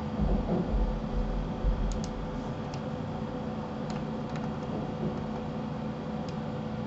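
A few scattered clicks of computer keys and mouse buttons over a steady low hum, with a low rumble in the first couple of seconds.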